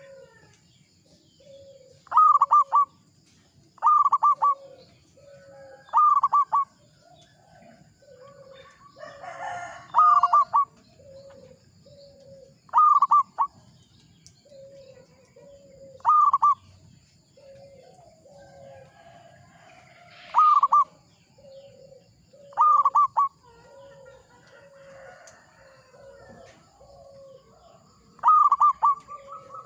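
Zebra dove (perkutut) singing: loud short phrases of staccato cooing about every two to three seconds, with softer low cooing notes repeated steadily between them.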